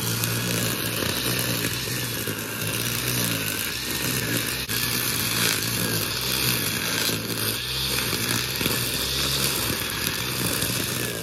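Motorised brush cutter running steadily while cutting long grass, its engine pitch wavering slightly as the head sweeps.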